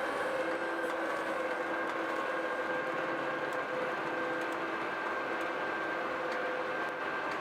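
Portable M5 car baler running steadily as it crushes a car into a bale: its hydraulic system, working at 4,000 psi, gives a constant whine held at a few pitches over the machine's noise.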